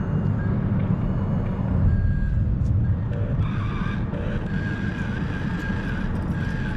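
Steady low rumble of traffic crossing the highway bridge overhead. A faint, wavering high tone comes in about halfway through.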